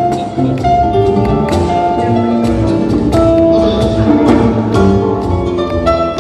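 Live band playing an instrumental passage of a bolero: a piano melody of struck, ringing notes over conga percussion and a low bass line.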